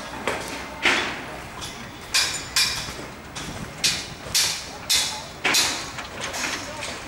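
Irregular sharp metal knocks and clanks on a construction site's steel scaffolding and formwork, about one or two a second, each ringing briefly.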